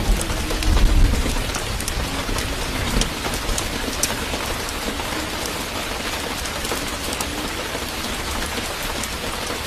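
Steady hiss of rain with scattered drop ticks. A low rumble sounds in about the first second.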